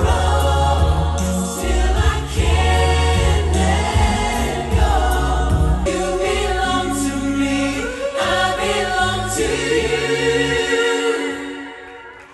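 Music with a group of voices singing together over a heavy bass line. The bass stops near the end and the music dies away.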